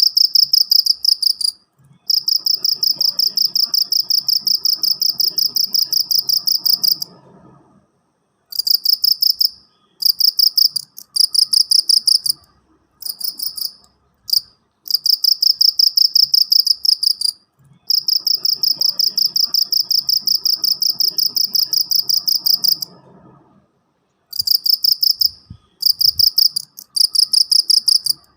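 A cricket chirping loudly in trains of rapid, even pulses at one high pitch, some short and some running about five seconds, stopping and starting again after brief pauses.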